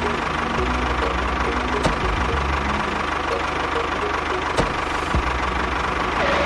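Diesel tractor engine sound running steadily with a knocking idle, with two sharp clicks about two and four and a half seconds in.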